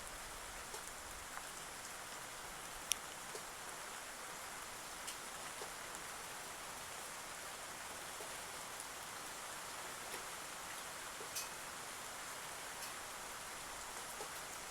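Steady rain-like hiss with scattered sharp ticks and clicks, the loudest about three seconds in: Eurasian tree sparrows pecking at feed.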